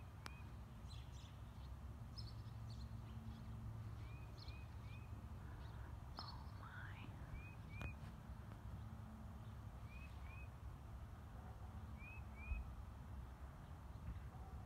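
Small birds calling: short rising chirps given in pairs every second or two, with a couple of longer falling whistles, over a steady low rumble.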